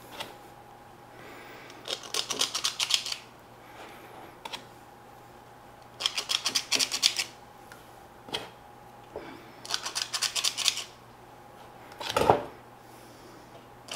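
Stainless spring-loaded cookie scoop working through soft dough: three runs of quick metallic clicks as it is squeezed and released, with scattered ticks and one louder knock near the end.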